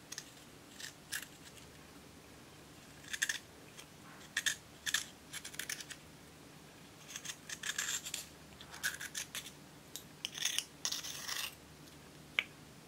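Small metal tool scraping pressed eyeshadow powder out of a compact's pan, in short irregular scratchy strokes that come in clusters. A single sharp click near the end.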